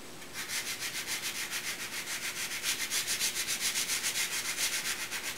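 Fine 220-grit sandpaper rubbed by hand over a curved cherry drawer pull, a quick, even rhythm of back-and-forth scratchy strokes that begins about half a second in.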